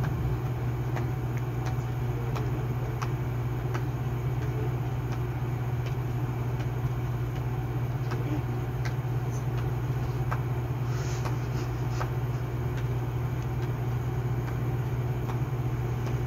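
Steady low mechanical hum with faint scattered clicks.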